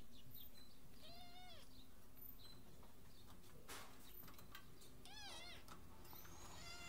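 Kitten meowing: two short, high-pitched meows that rise and fall in pitch, about a second in and about five seconds in, with a third starting near the end. A single sharp knock comes a little before the middle.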